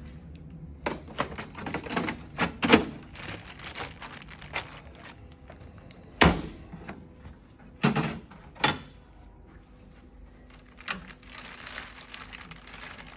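Plastic clicks and knocks from an Epson A4 inkjet printer's covers and rear paper feed being handled, a dozen or so separate strokes with a few louder thunks about six and eight seconds in. A stretch of soft rustling follows near the end.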